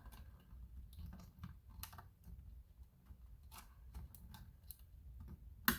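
Scattered light plastic clicks and taps from handling the open FrSky Taranis X9D+ radio transmitter while reseating its ribbon-cable connectors, with one sharper click near the end.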